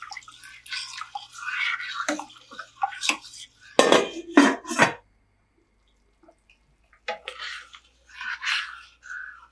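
Chicken broth sloshing in a stainless steel pot, then a metal lid going on with three sharp clanks about four seconds in. Near the end, a metal ladle stirring the boiling soup.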